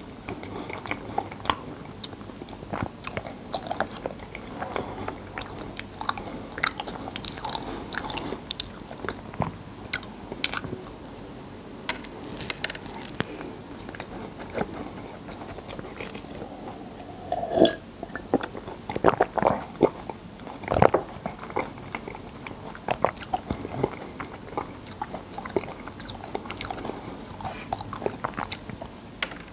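A person biting and chewing kkul-ppang (Korean honey-glazed bread sprinkled with sesame seeds): irregular crunching and mouth clicks, with a few louder bites past the middle.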